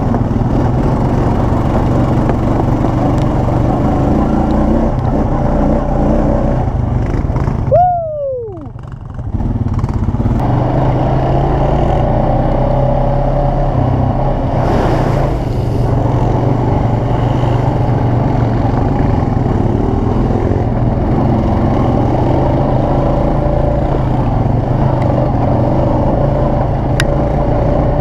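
ATV engine running steadily while riding off-road. About eight seconds in, the sound briefly drops away, with a falling tone, then picks back up.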